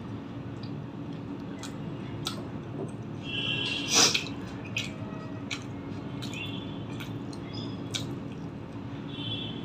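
Close-miked chewing of boiled egg in curry, with wet mouth smacks and scattered clicks and one louder wet squelch about four seconds in. A faint steady hum runs underneath.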